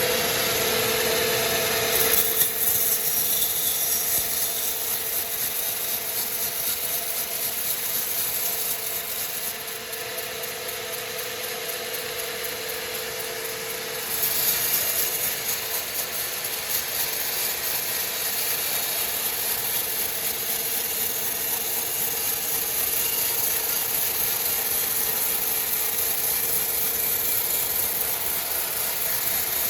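Sawmill machinery running steadily as a saw cuts through a hardwood log, with a steady whine under the cutting noise. The sound changes about two seconds in, eases off a little in the middle, and picks up again about halfway through.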